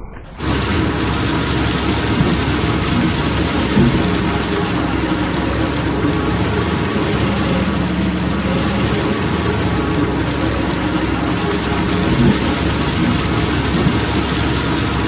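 Bark peeling machine running steadily, an engine-like drone under a dense, even hiss of noise. The sound starts abruptly just after the beginning.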